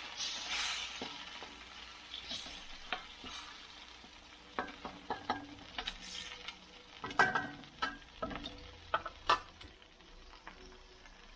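Wooden spoon stirring and scraping sliced carrots in a little soy sauce and water in a stainless steel wok, over a soft sizzle that fades. From about four to ten seconds in, the spoon clicks and knocks against the pan several times.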